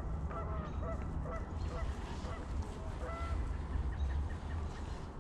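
Geese honking: a run of short calls, two or three a second, that die out about three seconds in, over a steady low rumble.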